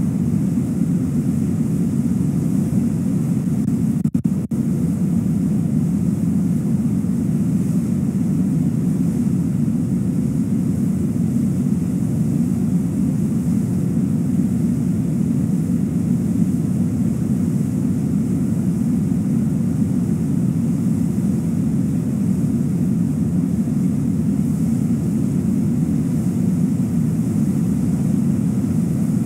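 Steady low rush of a waterfall and fast river water pouring over the falls, with a brief dropout in the audio about four seconds in.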